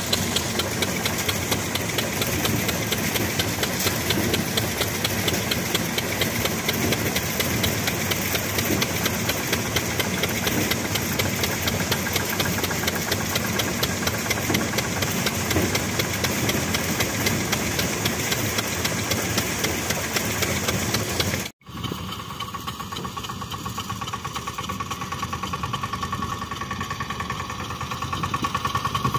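Field Marshal mini tractor's small diesel engine running steadily under load with a fast, even beat. It cuts off abruptly about three-quarters of the way in, then comes back with a steady whine mixed in.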